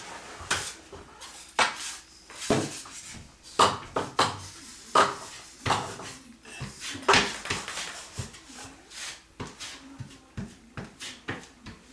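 Steel drywall knife spreading and scraping Durabond setting-type joint compound over a ceiling patch: a run of irregular scraping strokes with short metal clicks, the strokes longer in the first half and shorter, quicker ticks later.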